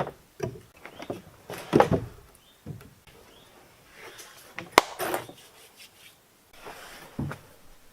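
Wood being handled: irregular knocks and scraping of timber, with a sharp loud knock about five seconds in.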